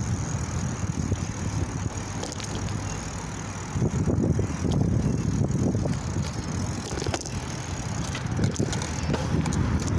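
Bicycle riding along a concrete sidewalk: a steady low rumble of tyres and wind on the microphone, with a few sharp clicks and rattles.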